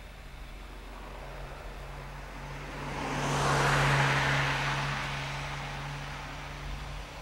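A road vehicle passes close by: its engine and tyre noise swell to a peak about four seconds in and fade away, over a steady low engine hum that stops near the end.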